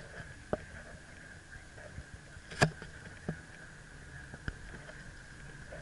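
Road and engine noise inside a moving car's cabin, with a steady high hum and a few sharp clicks and knocks. The loudest knock comes about two and a half seconds in.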